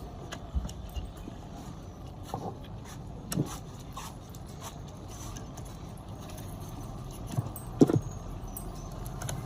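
Scattered light clicks and knocks of objects being handled, the loudest a little before the end, over a steady background hum.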